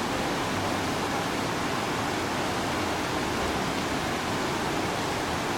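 Steady rushing of flowing water in a mountain river.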